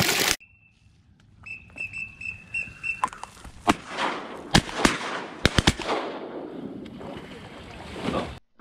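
A flurry of shotgun blasts at teal flying over: several shots in quick succession from different guns, most of them between about three and six seconds in. They are preceded by a quick run of high, evenly pitched whistle peeps.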